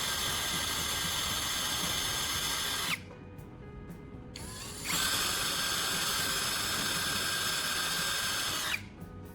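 Electric drill running with a steady whine, driving a screw into a stripped screw hole packed with a zip tie. It runs for about three seconds, pauses briefly, then runs again for about four seconds before stopping.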